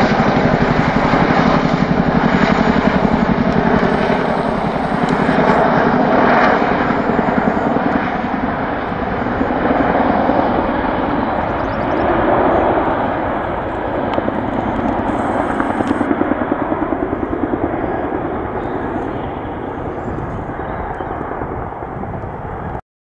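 Boeing CH-47 Chinook tandem-rotor helicopters passing low overhead, their rotors beating fast and steadily. The sound is loudest at the start and fades slowly as they fly off, then cuts off suddenly near the end.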